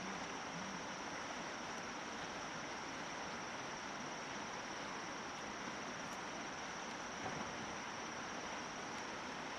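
Steady outdoor ambience: an even rushing noise with a continuous high-pitched insect drone over it.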